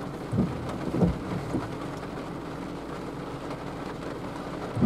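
Steady low outdoor rumble with dull low thumps about half a second and a second in, and another near the end.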